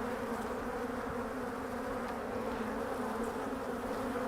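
Honey bees of an opened hive buzzing in a steady, even drone.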